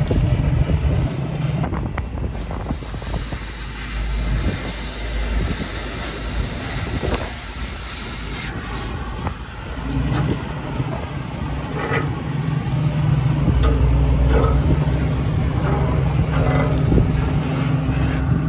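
A tracked excavator's diesel engine runs steadily under the hiss of an oxy-fuel cutting torch working on steel. The hiss cuts off suddenly about eight seconds in, and a few metal clanks follow.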